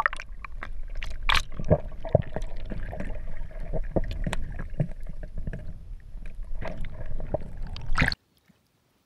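Muffled underwater sound from water moving around a submerged camera: a low rumble with many sharp clicks and knocks against the housing. It cuts off suddenly about eight seconds in.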